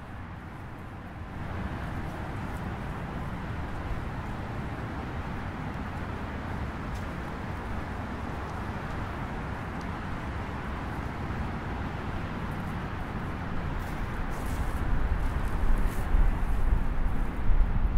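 Strong wind rushing through trees, stepping up about a second and a half in, over a steady hum of road traffic. In the last few seconds heavy gusts buffet the microphone.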